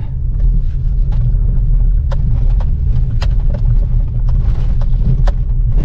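Inside a Maruti Suzuki Celerio driving slowly over a rough dirt track: a steady low rumble of engine and tyres, with about five sharp knocks scattered through it as the car goes over the bumpy surface.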